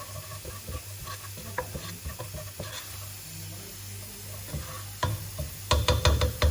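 Spices and aromatics frying in oil in a pan, stirred with a utensil, with scattered light scrapes. Near the end comes a quick run of louder knocks of the utensil against the pan.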